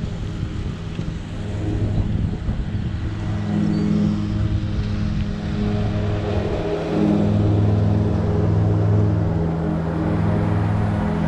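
A motor vehicle's engine running steadily with a low hum, getting a little louder about seven seconds in.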